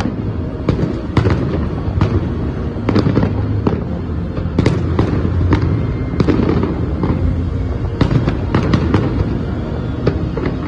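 A fireworks display with shells bursting in irregular succession, a sharp bang every second or so over a continuous low rumble.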